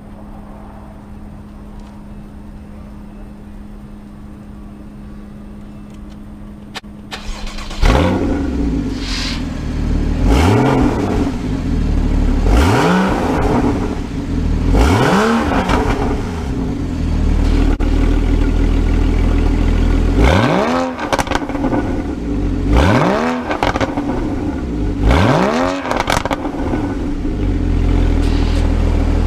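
Porsche Boxster GTS with its sport exhaust: a steady low hum, then the engine starts with a loud flare about eight seconds in and settles to idle. It is then blipped about six times, each rev rising and falling in pitch, with idle in between.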